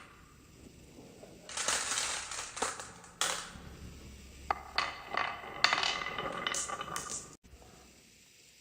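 Marbles rolling and clattering down a marble run, with sharp clicks as they strike the track; the sound cuts off suddenly near the end.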